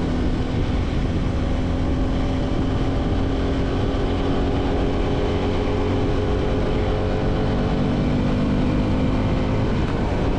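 Motorcycle engine running steadily while cruising in a high gear, its pitch holding nearly level, over a heavy rumble of wind on the microphone.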